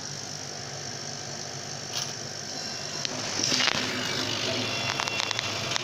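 A 50 W CO2 laser cutter starting a cutting job, with a steady hum from its extraction fan and cooling and air-assist equipment. A click comes about two seconds in. From about three seconds in, the cutting head moves in short whirring runs with quick clicks.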